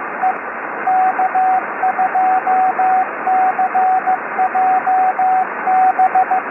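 Morse code: a steady single-pitch tone keyed in short and long elements (dots and dashes) over the hiss of a shortwave radio receiver, with a narrow, telephone-like sound.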